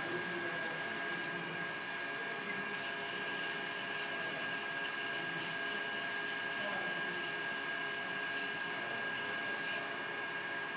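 On-car brake lathe running steadily, spinning the brake rotor while its cutting tips skim the friction surfaces. There is an even motor hum with a steady high-pitched whine.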